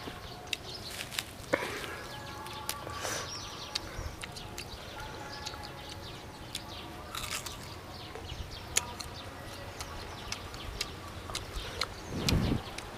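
Crunchy bites and chewing of unripe green mango, heard as many short sharp clicks. Birds call faintly in the background, and a louder low rustle comes near the end.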